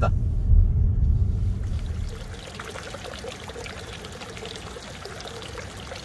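Low road rumble from inside a moving car for about two seconds, then water pouring and trickling into a stone basin.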